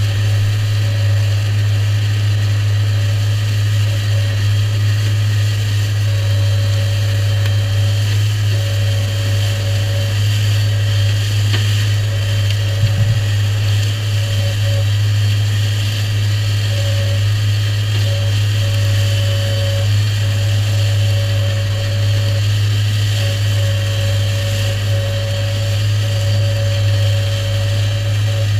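New Holland tractor engine running steadily under load while the Shelbourne hedge cutter's flail head cuts grass on a ditch bank: a constant low drone with a mid-pitched whine that comes and goes, and one small knock about halfway through.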